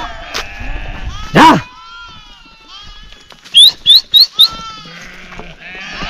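A flock of sheep bleating, many overlapping calls, with one loud close call about a second and a half in. Past the middle come four short, sharp whistles in quick succession, each rising in pitch, louder than the bleating.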